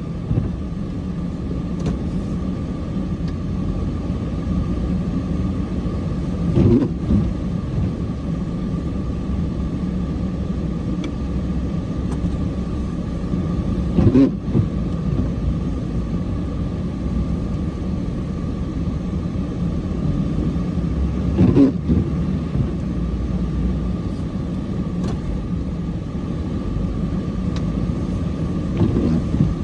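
Cummins diesel engine running steadily while plowing snow, with a brief louder surge about every seven seconds.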